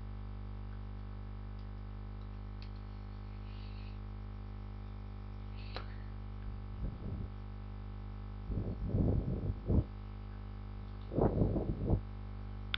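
Steady electrical hum from the recording setup, with three short, muffled bursts of low noise in the second half.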